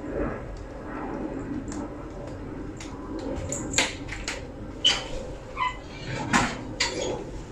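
Household knocks and clicks, as of crockery being carried and handled, over a steady low hum; the knocks begin about three seconds in.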